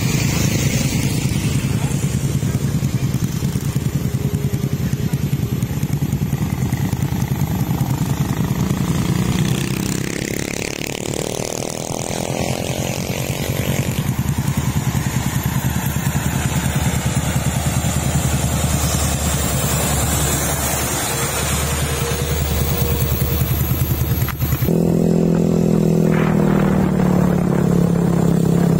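Road traffic on a bend: motorcycles and a car pass by. A heavily loaded truck's engine is heard coming closer. About three-quarters of the way through, the sound changes abruptly to the truck's engine running steadily close by with a low hum.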